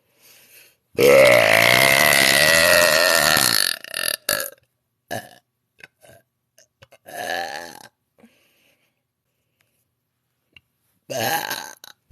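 A woman burping: one long, loud belch of nearly three seconds, then a string of shorter burps spaced a second or more apart.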